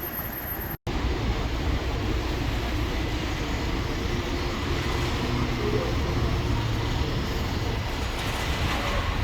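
Steady low rumble of city traffic with a faint engine hum, starting abruptly after a momentary dropout.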